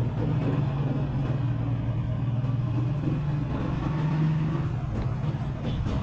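A steady low engine rumble, like a motor vehicle running nearby, with a couple of faint knocks about five seconds in from a cleaver on the wooden chopping block.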